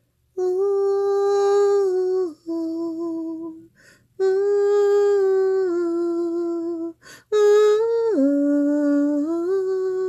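A woman humming a slow, wordless tune in long held notes that step up and down in pitch, four phrases with short breaths between them.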